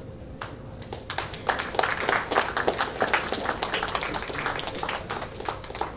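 Audience applauding. It starts with a few scattered claps, swells to full clapping about a second in, and thins out near the end.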